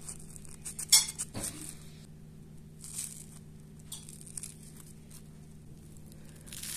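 The crisp fried crust of potato-and-carrot balls crackling as fingers tear them open, in several short spells of crackles, the sharpest about a second in. A faint steady low hum lies underneath.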